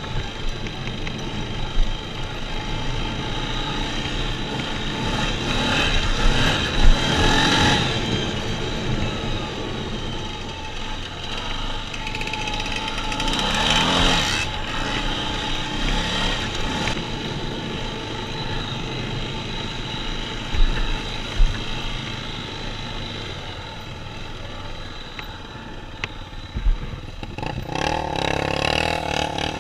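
ATV engine running under way on a dirt trail, revving up three times, with a few sharp knocks about two-thirds through.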